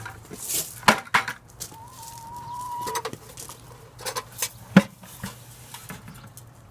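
Backyard hens calling, including one long, nearly level note about two seconds in, with a few sharp knocks from a plastic bucket being handled.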